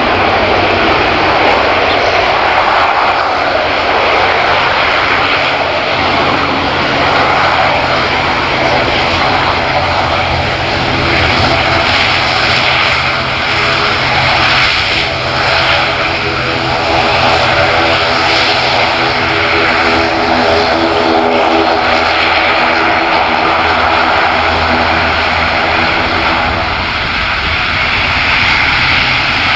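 ATR 42 turboprop airliner's two engines and propellers running at taxi power, a steady drone made of several held tones over a hiss.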